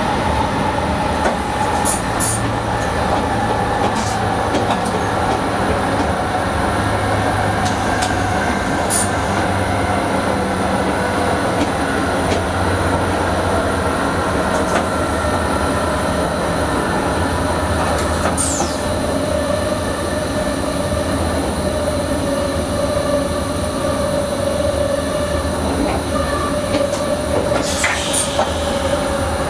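Electric Sprinter train running, heard from the driver's cab: a steady rolling rumble with a motor whine that drifts slowly in pitch. Occasional clicks come from the wheels over rail joints and points, with a few brief high squeaks.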